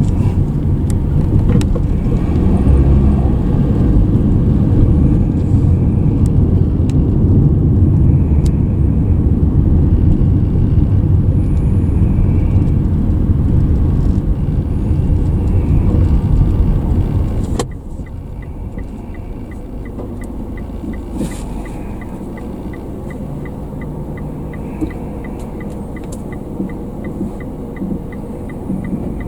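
Car driving, heard from inside the cabin: a steady low road and engine rumble. About two-thirds of the way through it cuts off suddenly to a quieter idle, with a quick, regular ticking of a turn-signal indicator, about three ticks a second.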